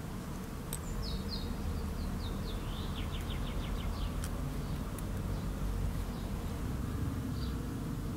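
Garden ambience: a low steady insect buzz, with a small bird singing a quick chirping trill that steps downward from about one to three and a half seconds in. A few faint sharp clicks.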